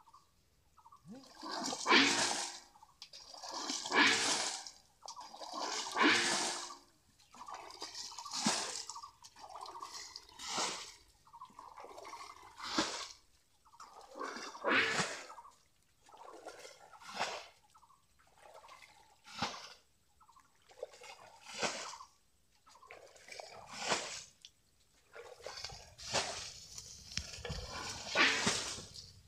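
Water being scooped up with a metal bowl and flung out of a muddy pool in a steady rhythm, one splash about every two seconds. The pool is being bailed out to get at the fish.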